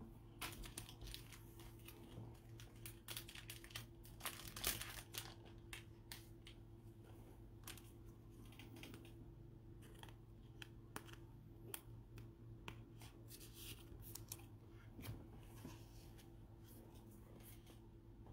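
Faint rustling, crinkling and light clicks from trading cards being handled and sorted by gloved hands, busiest in the first few seconds and then scattered, over a steady low hum.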